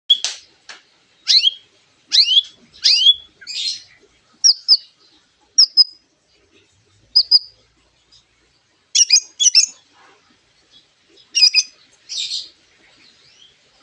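White-rumped shama (murai batu) singing copied lovebird calls: short, sharp chirps that sweep down in pitch, in separate bursts with brief pauses between them.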